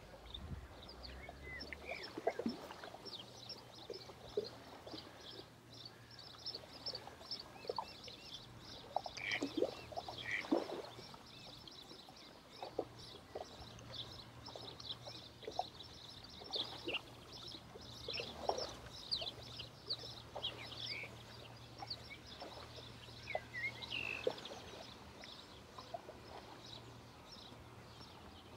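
Outdoor ambience of many small birds chirping and twittering continuously, with scattered short clicks and calls lower down and a faint low hum in the background.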